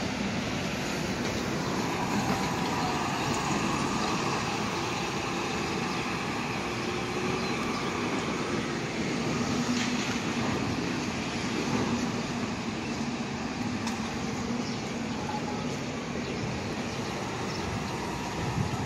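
Steady outdoor rumble of transit traffic: a Staten Island Railway train running through the yard, then a city bus driving by near the end, with faint steady tones from the vehicles over the noise.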